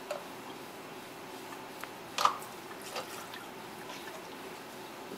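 Methanol poured from a plastic bottle through a plastic funnel, faint liquid sounds over a steady background hum. A sharp knock about two seconds in, with smaller clicks around it.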